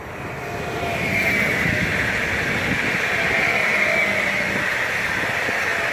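Stadler FLIRT electric multiple unit passing close by, a steady rush of wheels on rail with a high whine, building over the first second and holding loud as the cars go past.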